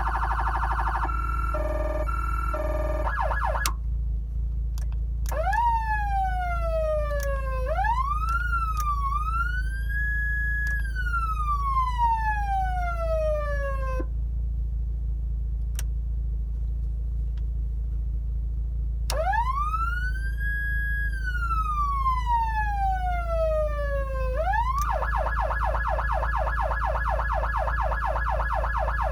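Federal Signal Touchmaster Delta siren amplifier cycling through siren tones: a fast warble, then choppy stepped tones, then slow wails that rise, hold and fall, with a few seconds' pause between some of them. It switches back to a fast warble near the end.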